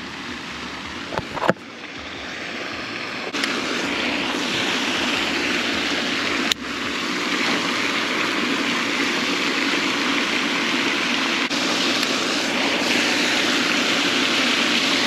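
Steady rushing splash of a pond fountain's spray falling onto the water, louder from a few seconds in.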